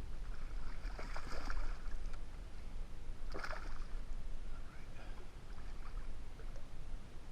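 Water splashing beside a canoe as a hooked fish is brought in: two short splashes, about a second in and again about three and a half seconds in, over a low steady rumble.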